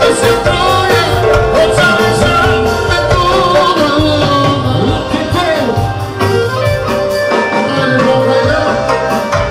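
Albanian folk dance music from a wedding band, with singing over a steady drum beat.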